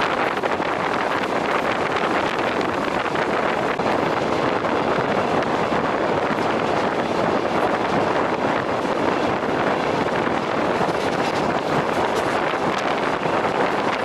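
Steady rushing noise of a moving train: wheels running on the rails, mixed with wind rush.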